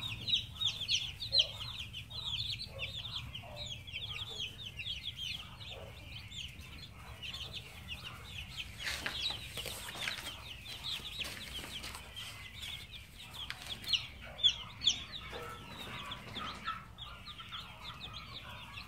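Chickens: a dense, continuous chatter of high peeping calls from many birds, mixed with lower clucking calls.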